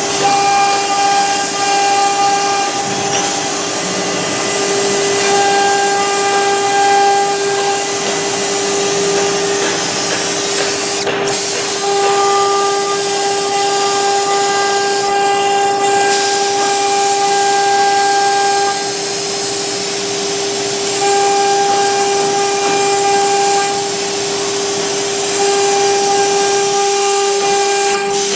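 CNC router's 3 kW water-cooled spindle running at speed while the bit engraves MDF: a steady high whine over a loud cutting hiss, the tone's upper overtones coming and going every few seconds as the cut changes.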